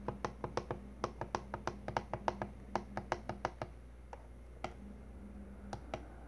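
Small alarm clock's buttons clicking as they are pressed over and over to step the alarm time: a quick run of about five clicks a second for some three and a half seconds, then a few single clicks.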